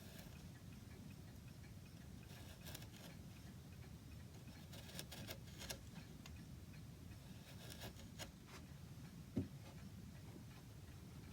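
Chisel paring the ends of a limewood insert: a few faint scraping clicks in small clusters, with one sharper knock about nine seconds in, over a low steady hum.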